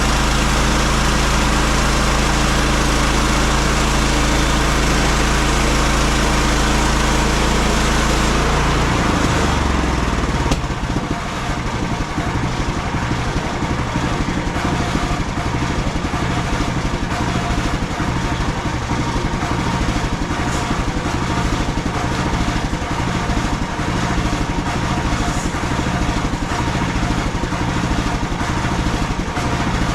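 The gasoline engine of a MechMaxx SM32 band sawmill running steadily. About nine seconds in its sound changes to a more uneven, pulsing running that carries on.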